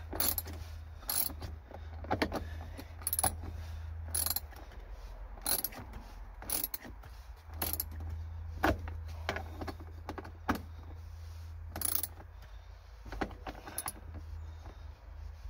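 Irregular metallic clicks and clinks of a car seat belt's fittings being handled and tightened with hand tools, over a low steady hum.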